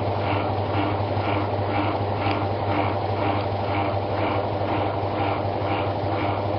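Samsung WA89V top-load washing machine running: a steady motor hum with a regular pulsing about three times a second, during the start of its rinse cycle.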